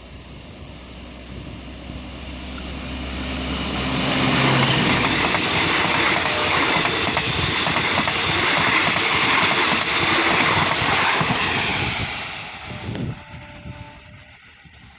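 Alstom diesel-electric locomotive of Thai ordinary train No. 284 running up with a steady engine drone, then passing loud and close. Its seven passenger coaches follow with wheels clattering over the rail joints for about eight seconds, and the sound fades away near the end.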